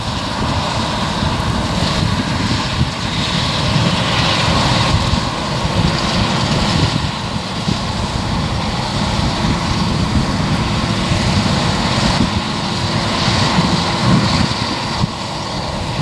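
Claas Lexion 630 combine harvester running steadily as it cuts wheat: a continuous engine and threshing-machinery drone.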